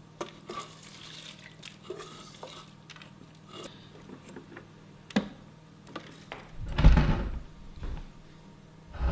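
Wet soaked grains being scraped and poured from a steel container into the stainless steel drum of a tabletop wet grinder: wet slopping with clinks and scrapes of metal on metal. About seven seconds in comes a louder low rumble lasting a second or so.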